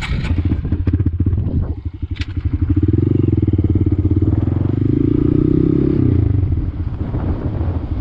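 Honda Grom mini motorcycle's small single-cylinder engine pulling away and speeding up, then backing off after about six seconds.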